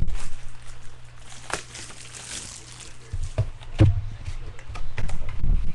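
Handling noise: a rustle of packaging with a few sharp knocks and low thumps, like a box of cards or its wrapper being handled on a table.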